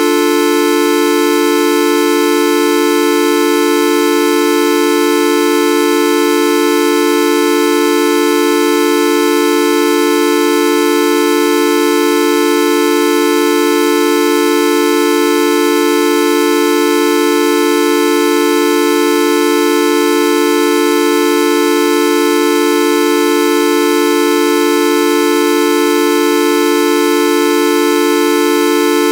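A loud, steady, unchanging electronic tone held throughout, several pitches sounding together with many overtones, horn-like and buzzy: a sound effect looped without a break.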